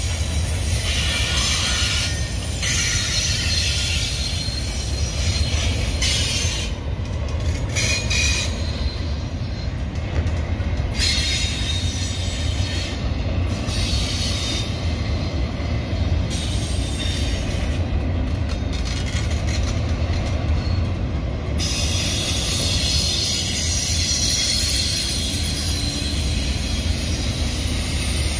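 Union Pacific double-stack intermodal train's container cars rolling past: a steady rumble of steel wheels on rail, with high-pitched wheel squeal that comes and goes.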